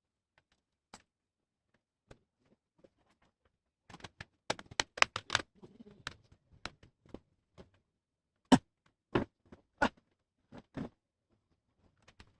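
Sharp clicks and light knocks of hard plastic and small tools being handled while a laptop is taken apart: a quick run of clicks about four to five and a half seconds in, then a few single, louder knocks.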